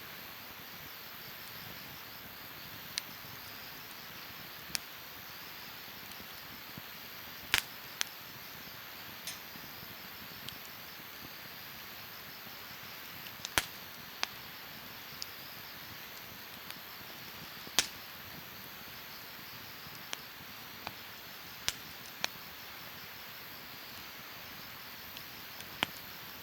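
Wood campfire crackling: a steady low hiss with irregular sharp pops and snaps, a few much louder than the rest.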